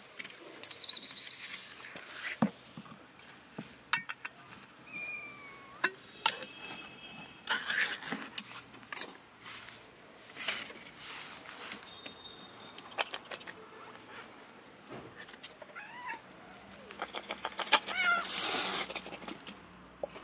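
Kittens mewing in short high calls, loudest about a second in and again near the end, among clicks and knocks from a plastic feeding tray and a metal tin of wet cat food being handled.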